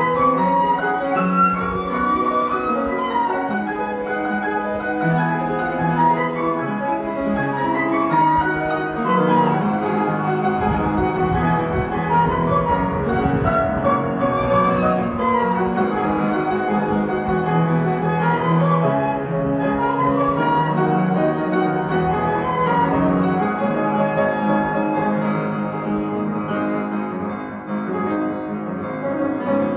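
Instrumental music with piano and bowed strings playing a continuous melodic passage.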